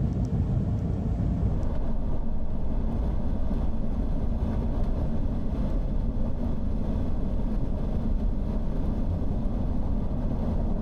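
Steady road and engine noise from inside a vehicle cruising on the highway, an even low rumble with no changes.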